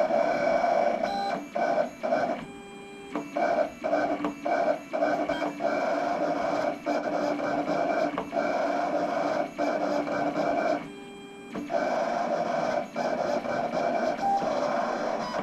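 USCutter vinyl cutter running, its motors whirring and buzzing as the blade carriage and feed rollers cut heat transfer vinyl. The whirring stops and starts often as the head jumps between moves, and it goes quieter for under a second twice, about three and eleven seconds in.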